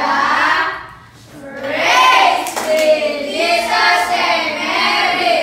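A class of schoolchildren singing together in unison, with some hand clapping. The singing breaks off briefly about a second in, then resumes.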